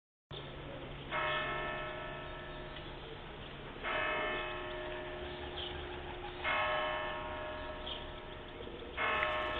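Church bell tolling: four slow strokes about two and a half seconds apart, each ringing on and fading before the next.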